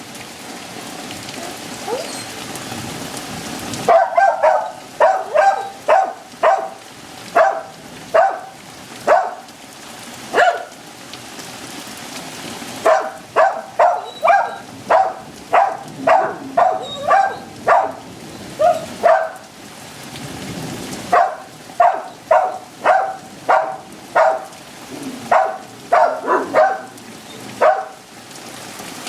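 Heavy rain falling steadily while a dog barks over and over, barking at the rain. The barks come in three long runs of about two barks a second, starting about four seconds in.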